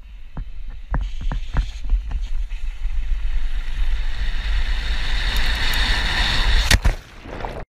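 Mountain bike running fast down a steep concrete dam face, heard from a helmet camera: tyre rumble over the concrete, with sharp clicks and knocks from the bike over cracks and joints in the first couple of seconds. Wind rush on the microphone grows louder as speed builds, and there is one sharp knock near the end.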